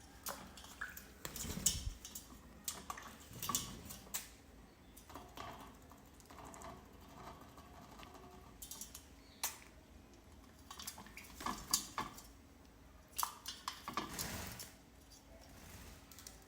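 Rose-ringed parakeet bathing in a container of water: irregular bursts of splashing and drips, with clinks and knocks against the container.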